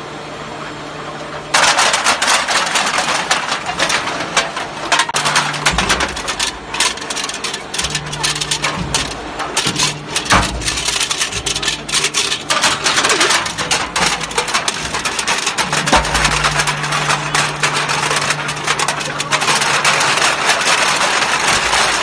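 Automatic aluminium can baler at work: a dense clatter of rattling and crushing aluminium cans starts about a second and a half in, over a steady machine hum that comes and goes. A few low thuds fall in the middle.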